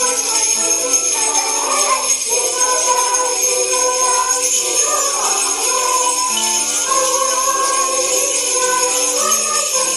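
Sleigh bells jingling steadily over recorded music.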